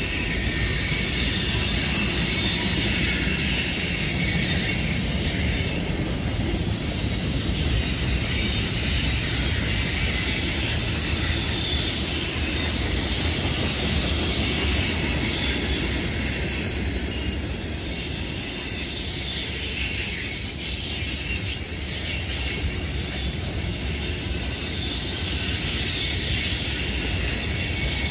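Freight cars of a passing train rolling through a curve: a steady rumble of steel wheels on rail, with high-pitched wheel squeal coming and going over it.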